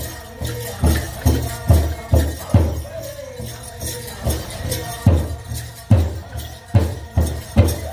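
Powwow drum group singing a chicken dance song over a steady big-drum beat of a little over two strokes a second, some strokes hit harder about five seconds in, with a jingling rattle over it.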